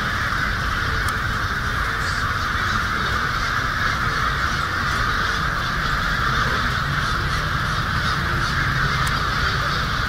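Massed calling of a huge flock of blackbirds, all calling at once in a dense, unbroken din that holds steady throughout.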